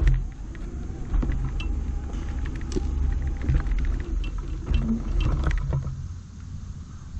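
Golf push cart with the camera on it rolling over fairway grass: a low rumble with scattered rattles and clicks, which dies away about six seconds in as the cart comes to rest.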